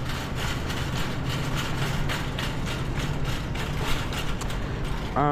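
Potatoes being handled and bagged, with irregular crinkling of a plastic produce bag, over a steady low machine hum.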